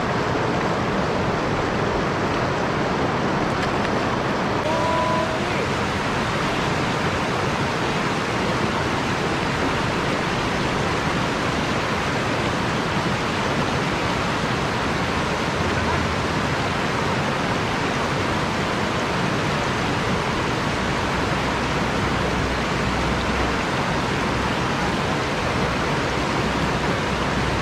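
Steady rush of river water spilling over a weir and tumbling around rocks in shallow rapids.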